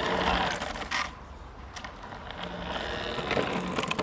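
Homemade electric skateboard's brushless DC motor, driven by an STM32 drone motor-control board, running under remote control as the board's wheels roll over cracked asphalt. A mechanical whirr comes and goes, with a short knock about a second in.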